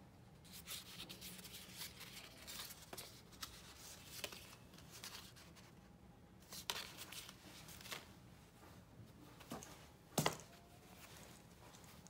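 Hands handling paper cards and tags and then a cloth dust bag: soft paper rustling and crinkling with scattered light clicks, and one louder thump about ten seconds in.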